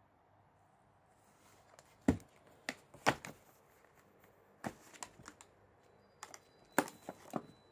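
A cat playing with a wand toy among cardboard boxes: a scatter of sharp taps and crinkly rustles, the loudest about two seconds in, three seconds in and near the end.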